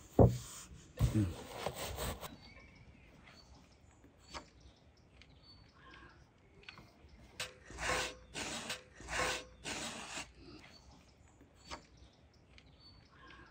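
Dry baked pastry for a Napoleon cake being crushed and rubbed into crumbs inside a cloth: loud knocks and crunching in the first two seconds, then a quiet stretch, then four or five rasping, rustling strokes about eight seconds in.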